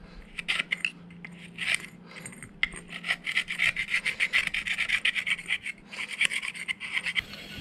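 Flat screwdriver scraping and digging caked dirt out of a Toyota Land Cruiser 40 series diff pinion flange, in quick short strokes of steel on steel. The strokes come in scattered bunches at first, run on steadily after a couple of seconds, and stop shortly before the end.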